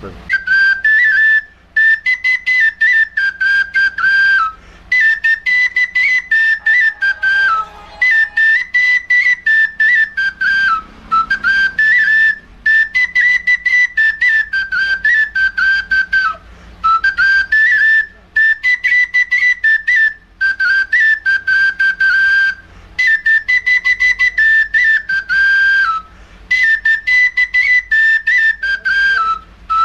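Small red basari flute playing a fast, high folk melody in short phrases of quickly repeated, tongued notes, with brief breaks for breath every couple of seconds.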